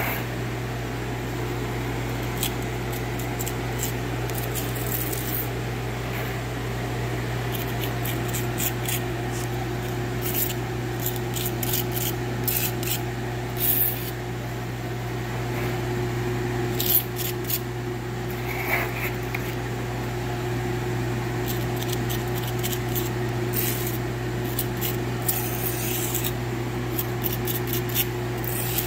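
A putty knife scraping and spreading grout over ceramic floor tiles in short, irregular strokes, working it into joints where the grout was missing. A steady low hum runs underneath.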